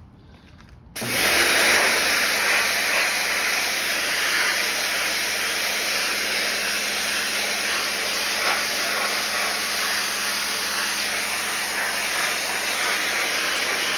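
Electric pressure washer starting about a second in, then running steadily: a loud hiss of the water jet blasting degreaser-softened grease off a metal vent-hood grate, over the steady hum of the pump motor.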